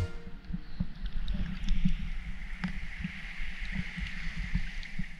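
Calm seawater lapping and sloshing around a camera held at the waterline, with irregular soft slaps and a few faint clicks over a steady hiss.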